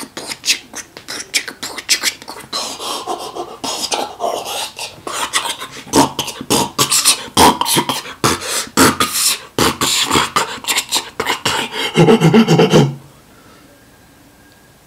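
Human beatboxing: a fast string of mouth-made percussion hits and clicks, with a short voiced buzzing passage about twelve seconds in. It stops abruptly about two seconds before the end.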